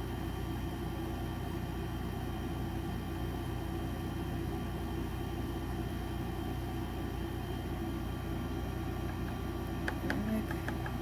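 Steady hum and hiss of an electric fan running, with a few light clicks about ten seconds in.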